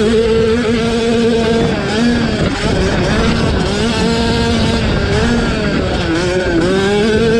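50cc youth motocross bike engines racing, the pitch rising and falling again and again as the throttle is worked.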